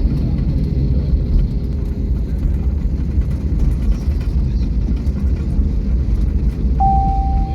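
Steady low rumble of a jet airliner's cabin as the plane taxis after landing. Near the end, a single clear chime sounds from the cabin PA, the signal that an announcement is coming.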